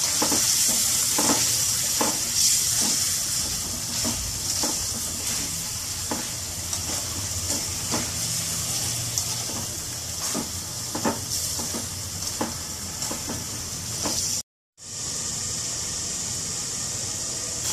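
Chicken gizzards frying in oil with spices in a metal kadai, a steady sizzle, while a metal spoon scrapes and knocks against the pan as the pieces are stirred. The sound cuts out for a moment near the end, then the sizzle goes on with no stirring.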